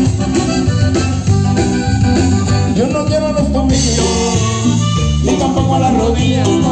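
Christian praise band playing upbeat Latin-style music, with guitar and percussion over a steady beat.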